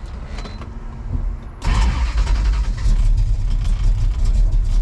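1969 Dodge Charger R/T's V8 engine with a low rumble that jumps suddenly to a loud, steady run about a second and a half in.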